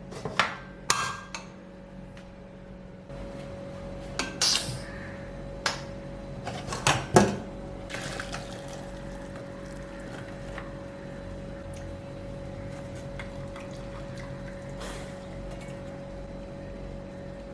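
Metal clatter of a pressure cooker being closed: several sharp clinks and knocks over the first seven seconds or so, then a steady hiss.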